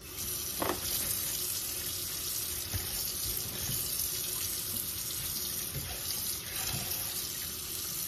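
Kitchen faucet turned on and running steadily into a stainless steel sink, the stream splashing onto a plate of cooked shrimp as they are rinsed by hand.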